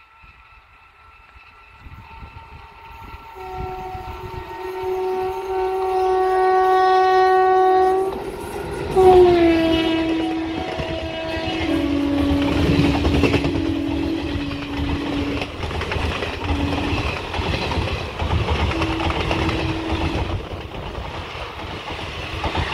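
Electric locomotive sounding its horn: a long steady blast growing louder as it approaches, then a second blast whose pitch drops as the locomotive passes close by. The coaches then rumble and clatter past over the rail joints, with a short horn note again near the end.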